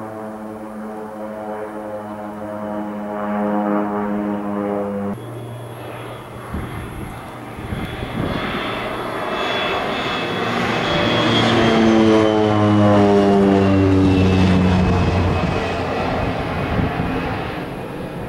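Air Tractor AT-502B crop duster's PT6A turboprop and propeller passing low overhead. A steady propeller drone changes abruptly about five seconds in to a louder pass, loudest about two-thirds through, where a high turbine whine and the drone both drop in pitch as the plane goes by.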